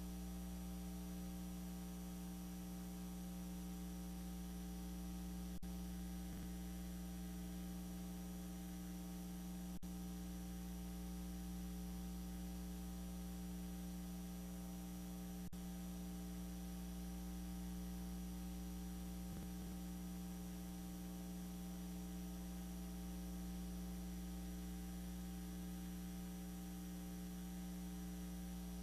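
Low, steady electrical mains hum in the audio line: a constant buzz made of several tones stacked one above another, over a low rumble. Three faint clicks come about 6, 10 and 15 seconds in.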